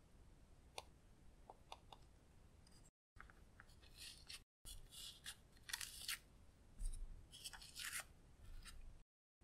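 Pink plastic candy-shaped eyeshadow compact clicking faintly a few times, then fingers scraping and crumbling pressed gold glitter eyeshadow out of its pan in a series of short scratchy scrapes, loudest near the end. The sound drops out to dead silence briefly a few times.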